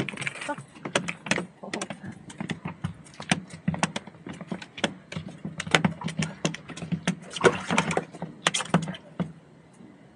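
Rapid, irregular clicking and light knocking from fishing tackle being worked while fish are brought in, over a low steady hum.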